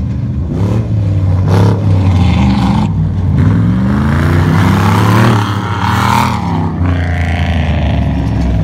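Off-road rally-raid truck driving hard through scrub and passing close, its engine note rising and then falling as it goes by. A rush of brush and dirt noise peaks about four to six seconds in, over a steady low engine drone.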